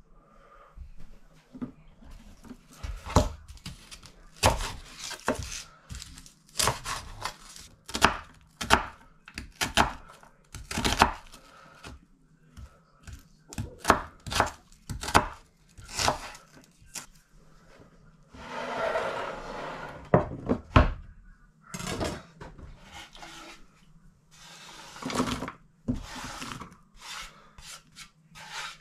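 Chef's knife slicing an onion on a wooden chopping board: irregular sharp knocks of the blade hitting the board, with a couple of longer scraping sounds in the second half.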